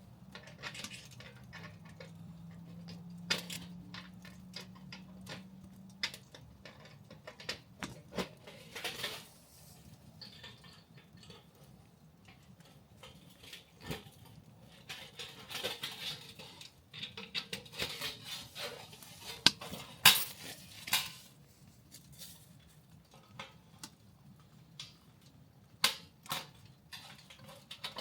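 Cookware and metal utensils being handled: irregular clinks and knocks, in clusters, the sharpest about twenty seconds in.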